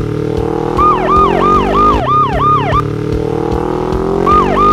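A rapid yelping police-style siren, about three rises and falls a second, that comes in about a second in, breaks off near the three-second mark and returns near the end. Under it an engine sound hums and climbs steadily in pitch, starting over twice.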